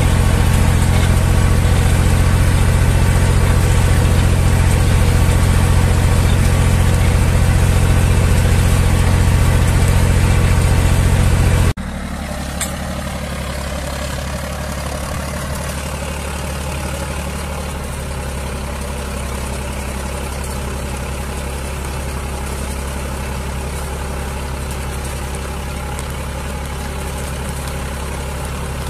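Zetor 5011 tractor's three-cylinder diesel engine running steadily under load while pulling a two-furrow plough. It is loud and close at first, then about twelve seconds in drops suddenly to a quieter, more distant steady running.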